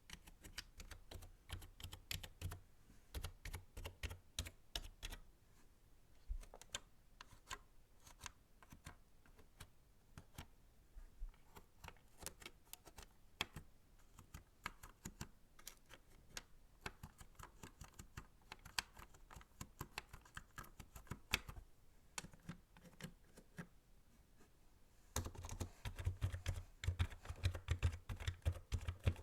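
Typing on a computer keyboard, close-miked: quick, irregular key clicks, louder and heavier for the first few seconds and again in the last few seconds.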